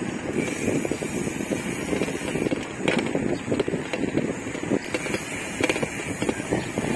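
Wind buffeting the microphone while riding, a steady rough rush with irregular gusts.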